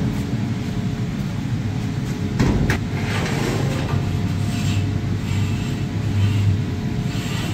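Long steel rod being dragged out of a pile of rods, clinking and scraping against the metal, with a sharp clatter about two and a half seconds in. A steady low mechanical hum runs underneath.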